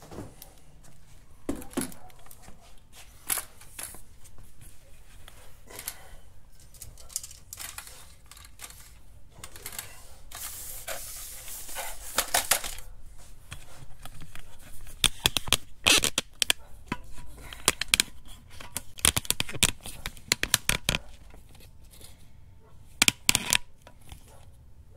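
Handling noise as a GoPro camera is moved and repositioned: scattered light clicks and knocks, a stretch of rustling about ten seconds in, and quick clusters of clicks in the second half.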